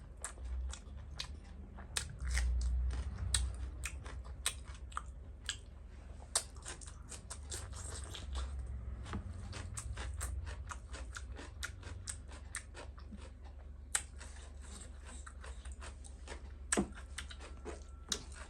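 Close-miked chewing of a mouthful of food, with many small wet mouth clicks and smacks throughout.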